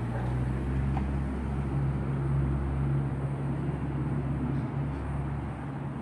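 Low, steady rumble of a military jet, growing louder at the start and holding.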